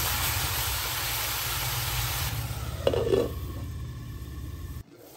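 Chicken pieces sizzling in a cast-iron kadai as they are stirred with a spatula, the sizzle fading after about two seconds. About three seconds in comes a short clunk as the glass pot lid is set on the pan.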